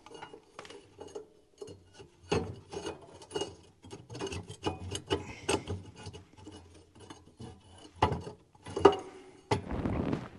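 Metal burner tube being slid and twisted into place inside a Drolet wood stove's firebox: irregular short scrapes, rubs and knocks of metal on metal.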